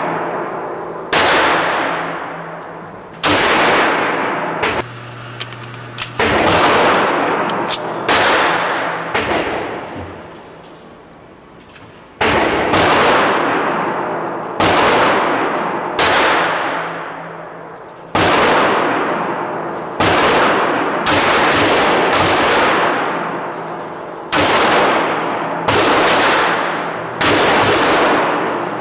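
9mm pistol fired in single shots, some eighteen of them a second or two apart with one longer pause midway. Each shot cracks sharply and fades in a long echo off the walls of an indoor range.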